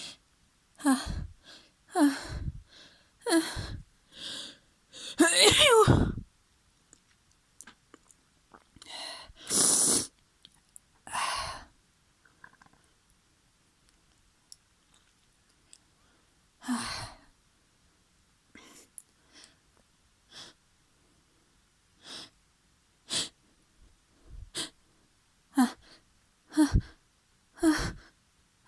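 A person sneezing again and again in messy sneezes. The longest and loudest comes about five seconds in, and near the end shorter sneezes follow about one a second.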